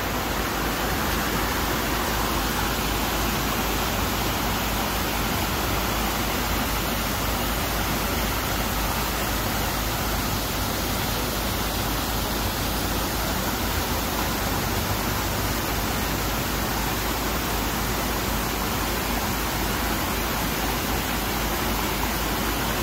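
Water rushing steadily over a small rocky cascade of rapids.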